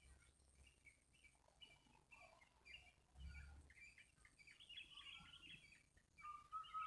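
Faint birdsong: small birds chirping in quick, varied short notes, with one longer steady whistle near the end.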